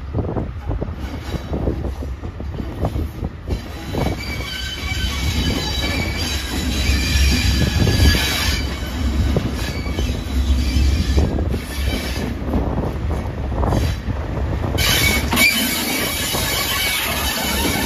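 Class 37 diesel locomotive 37403 arriving at the platform at close range, its English Electric V12 diesel engine running with a low rumble. High-pitched wheel squeal on the curved track sets in a few seconds in and comes back near the end.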